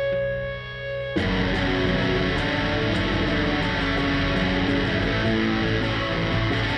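Live heavy rock band: a sustained, effects-laden electric guitar tone rings, then about a second in the band comes in loud with heavily distorted electric guitars over a steady beat of sharp hits.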